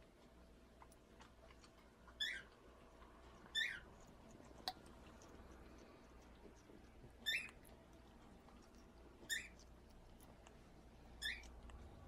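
African grey parrot making short, high, falling squeaks, five of them a second or two apart, while eating, with a single sharp click about halfway through.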